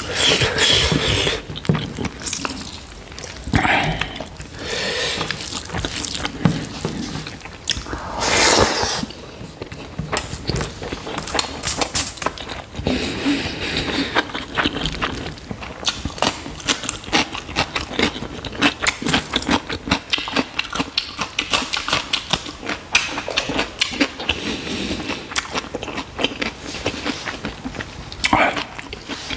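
Close-miked eating: wet chewing and quick mouth smacks as a man eats rice and pork curry by hand, in a dense run of short clicks with a few louder bursts.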